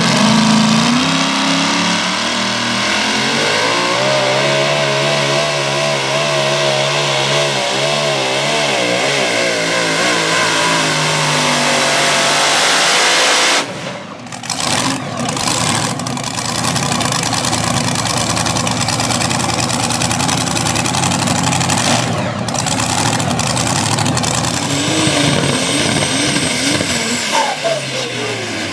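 The supercharged engine of a modified pickup pulling a sled at full throttle, its revs wavering up and down under the load. After an abrupt cut about halfway through, a truck engine is heard working hard under load again.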